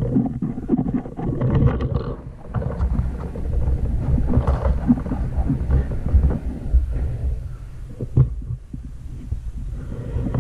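Wind buffeting and rubbing on a handheld phone's microphone, an uneven low rumble, with a couple of sharp knocks about halfway through and again near the end.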